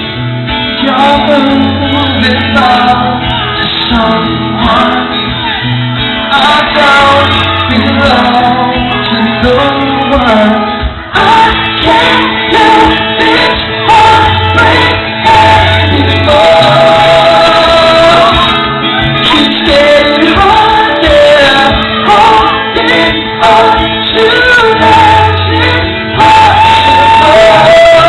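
Live pop-rock band performance with singing over guitars and drums, loud and heard through the reverberation of a concert hall.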